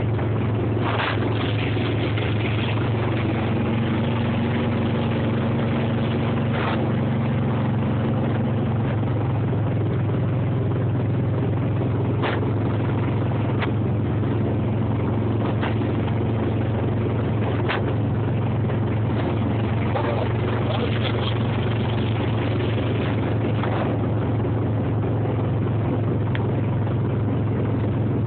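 Motorboat engine running steadily at towing speed, a constant low drone over the rush of water and wind. A few brief knocks come through at scattered moments.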